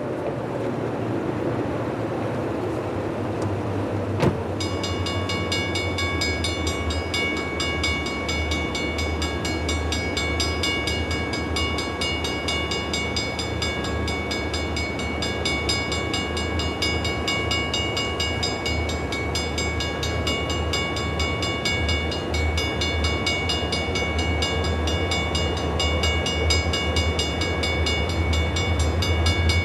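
Diesel freight train approaching: EMD locomotive engines droning steadily, growing louder near the end. A steady high ringing starts suddenly about four seconds in and keeps on.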